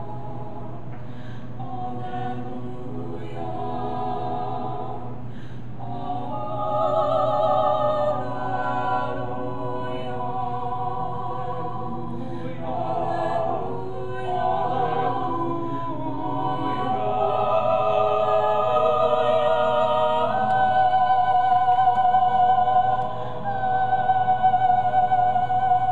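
Vocal quartet of two women and two men singing in classical style, the high voices sung with vibrato. The singing swells louder about six seconds in and again through the second half.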